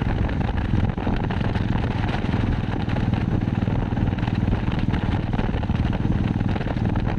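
Motorcycle engine running at a steady cruising speed while riding, with a constant rushing noise over it.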